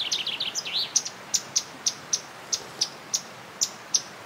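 Small songbird singing: a fast trill that falls in pitch and ends within the first second, followed by a run of short, sharp, high chirps at about three a second.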